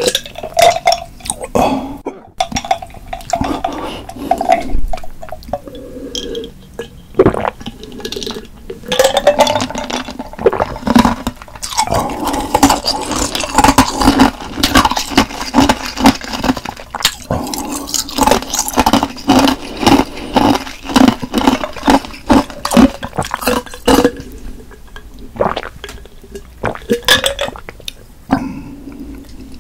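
Close-miked eating of sundae, Korean blood sausage: wet chewing, smacking and swallowing in a busy run of quick clicks, with clinks of dishes.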